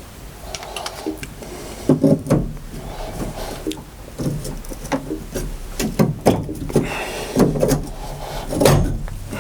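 A series of irregular knocks and clunks, with the loudest around two seconds in and again near the end.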